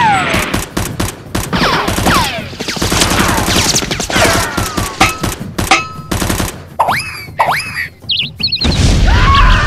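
Rapid gunfire sound effects, many sharp shots with falling whistles like passing or ricocheting bullets, over music. A low boom comes in near the end.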